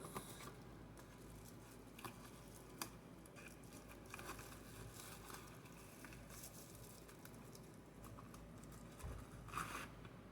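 Faint rustling and light clicks of a phone screen and its packaging being handled and packed back into the box, with a slightly louder short rustle near the end.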